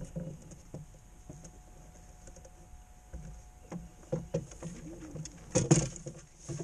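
Knocks and thumps of a person shifting his weight and kneeling in a small wooden sailing skiff, then a louder clatter and rustle just before six seconds in as the sail is lowered.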